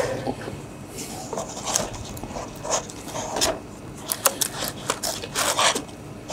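Takeaway plates and small containers being set and shifted inside a kraft cardboard delivery box: irregular short scrapes, rustles and light knocks of cardboard and packaging.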